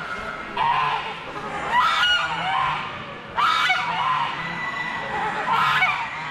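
Geese honking in a series of loud calls about a second and a half apart, with softer honks between them.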